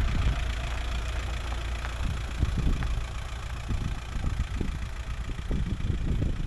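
Inside a VW T5 campervan's cab while driving: a steady low engine and road rumble with tyre hiss, and occasional low thumps from the road.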